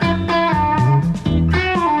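Background music: an instrumental passage of a guitar-led song, with sustained guitar notes over a bass line.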